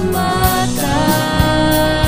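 Christian praise song: a sung melody with long, gliding held notes over a band accompaniment with drum strikes.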